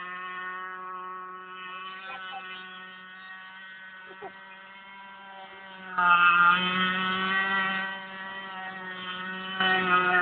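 Radio-controlled model boat's motor running with a steady buzzing whine on one pitch. It is fainter at first, grows much louder about six seconds in, eases off, and swells again near the end.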